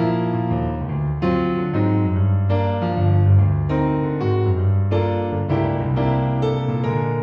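Background piano music, a steady sequence of notes with a repeating bass line.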